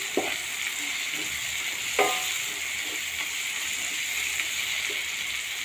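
Onion-tomato masala sizzling steadily as it fries in oil in a non-stick pan while it is stirred with a wooden spatula, with a couple of brief sharper scrapes, one just after the start and one about two seconds in. The masala is being roasted down until it is well fried.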